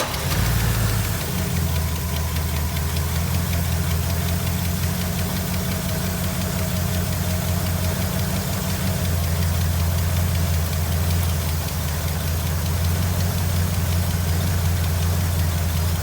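1982 Pontiac Trans Am's 5.0-litre V8 idling steadily just after being started, running on freshly changed oil.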